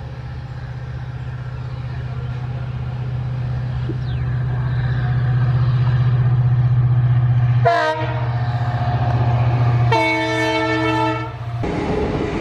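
EMD WDP-4 diesel locomotive with a two-stroke V16 engine, running under power and growing steadily louder as it approaches. Its horn sounds once briefly about eight seconds in, then again longer about two seconds later. Near the end the sound cuts to a steady noisy rumble.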